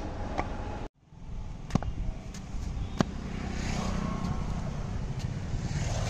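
Outdoor ambience: a steady low rumble, broken by a brief dropout about a second in, then a few sharp knocks, two of them loud.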